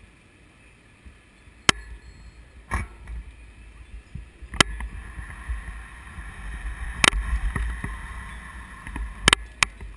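Low wind and road rumble on a handlebar-mounted camera on a moving bicycle, with about six sharp knocks as the mount jolts.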